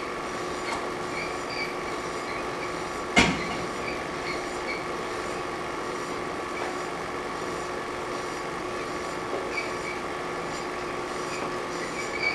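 A steady mechanical hum with hiss and faint light ticks, broken by one sharp click about three seconds in.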